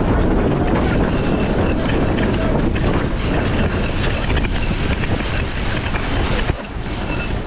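Wind buffeting the microphone and water rushing along the hull of a racing sailing yacht under way, a steady heavy rumble with a dip in loudness near the end.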